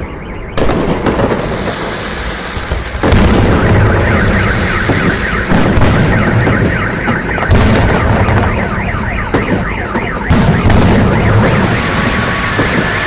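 Fireworks going off in a series of loud bangs over a continuous rumble, while a car alarm sounds a rapidly warbling siren that switches to alternating two-tone beeps near the end.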